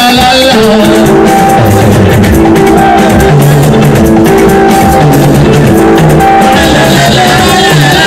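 Band music: an instrumental passage with a bass line, drum kit and guitar keeping a steady beat, and singing voices coming back in near the end.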